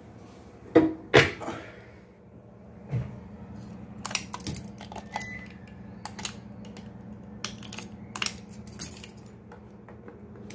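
A bunch of keys on a metal keyring jangling in the hand in several short bursts while a plug-in socket tester is pushed into a wall outlet. Two sharp clacks come about a second in, and a steady low hum runs underneath from about two seconds in.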